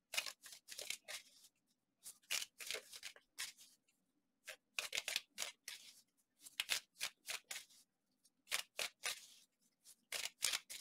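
A deck of tarot cards being shuffled and handled by hand: a string of short, crisp card strokes in irregular clusters.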